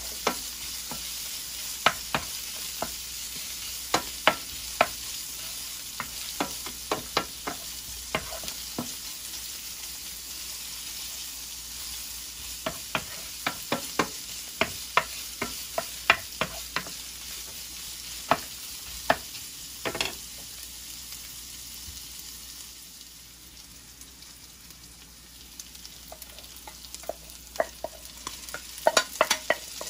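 Beef and minced garlic sizzling in a nonstick frying pan as they are stirred, with a cooking utensil clicking and scraping against the pan every second or so. Near the end the sizzle drops a little and a quick run of taps comes as rice is scraped in from a second pan.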